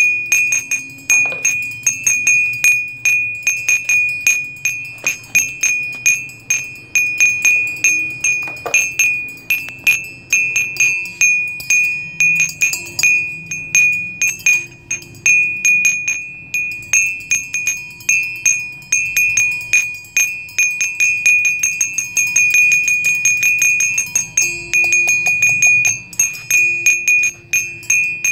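Chimes tinkling steadily, with many quick, irregular strikes a second, each ringing out on the same few high tones.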